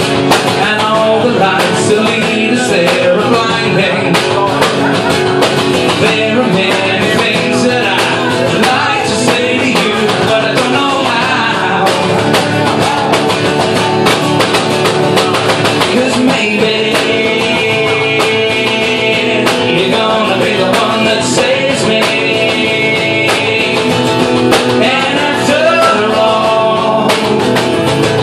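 Live music: a guitar strummed to a steady beat, with singing.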